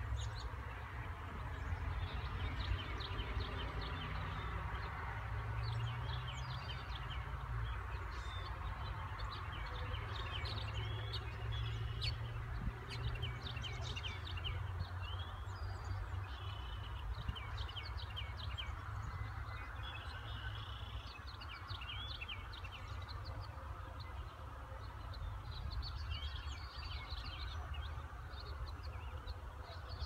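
Songbirds chirping and singing in a morning chorus, many short overlapping calls, over a steady low rumble.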